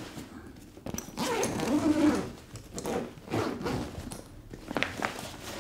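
The zipper of a Kata 3N1-33 camera backpack being pulled open around the main compartment in several scraping strokes.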